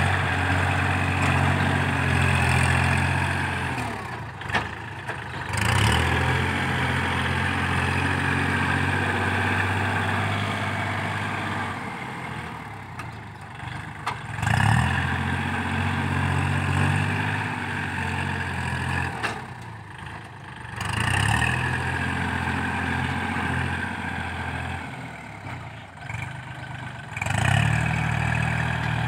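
Kubota L4018 tractor's three-cylinder diesel engine running under load while its front dozer blade pushes loose soil. The engine note falls away and comes back strongly about four times.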